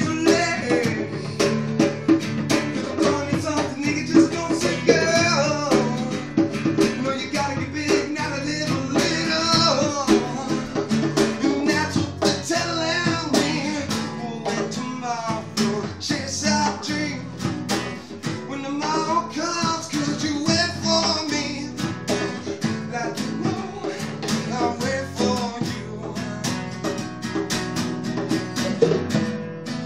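Live acoustic folk-blues jam: a strummed acoustic guitar with a djembe and a hand drum played by hand, and a man singing over them.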